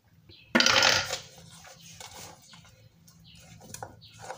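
Silicone spatula spreading thick cake batter in a round metal cake tin: soft, uneven squishing and scraping. About half a second in there is one loud, harsh half-second burst of noise.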